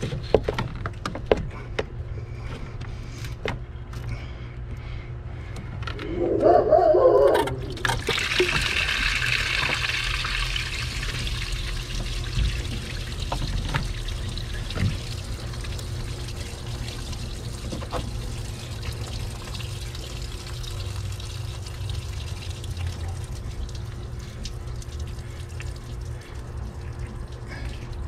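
Engine coolant pouring and trickling from the coolant reservoir hose area: a hiss of running liquid starts about eight seconds in and slowly tapers off, with small clicks of hands working on the hoses and clamp.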